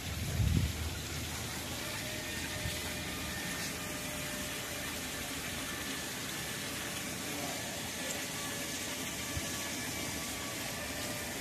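Steady rush of water falling from a swimming pool's wall-mounted waterfall spout into the pool, splashing on the surface. A brief low thump about half a second in.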